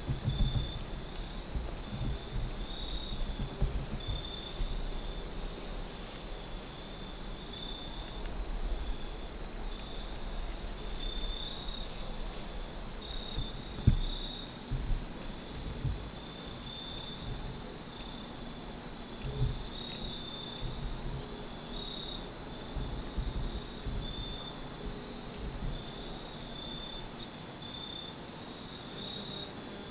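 Steady chorus of crickets: one continuous high trill with a second, pulsing chirp just below it. Irregular low bumps sit under it, and one sharp knock comes about halfway through.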